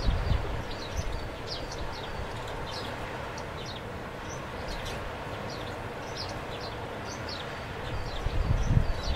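Small birds chirping: short, high, falling notes, several a second, over a steady outdoor hiss. Wind gusts rumble on the microphone at the start and again near the end.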